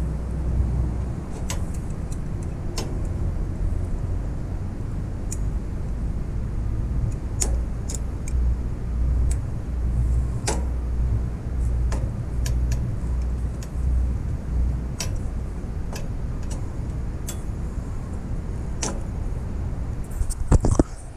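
Scattered small metal clicks and taps as brake cables are hooked into the round metal plate of a surrey bike's brake-lever mechanism, with a quick run of louder clicks near the end. A steady low rumble sits underneath.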